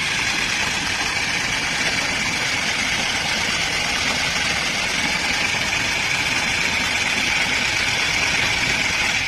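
Car engine idling with excessive noise from the fan-belt tensioner pulley, a steady high whine over a rough whirring. The tensioner bearing is badly worn; the noise is not from inside the engine.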